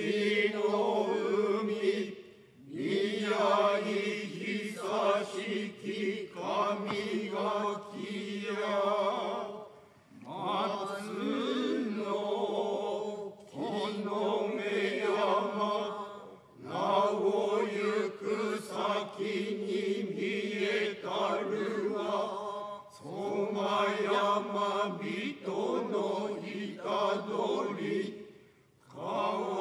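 Kanze-school Noh chant (utai) sung in unison by a mixed group of men and women, unaccompanied, in long held phrases broken by short breath pauses every six or seven seconds.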